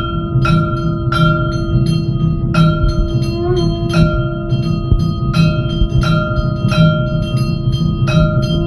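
Bells struck in an even rhythm, about three strikes every two seconds, each ringing on, over a steady held tone and a pulsing low beat: ritual music accompanying a mangalarathi lamp worship.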